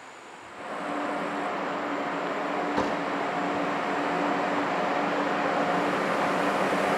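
ÖBB Taurus (Siemens ES64U2) electric locomotive approaching with a train, growing steadily louder, with a steady hum in two notes over the running noise. It starts about half a second in, with one sharp click about three seconds in.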